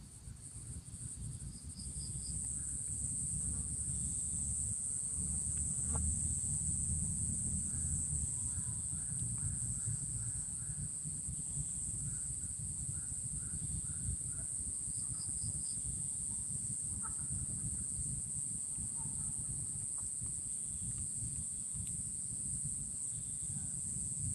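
Insects droning in a steady high-pitched hum, with a few short runs of quick chirps over a low background rumble.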